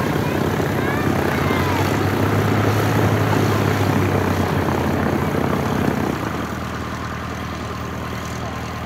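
Reims-Cessna 150 light aircraft taxiing after landing. Its four-cylinder piston engine and propeller run steadily at low taxi power. The sound is loud at first and drops noticeably about six seconds in as the plane moves past.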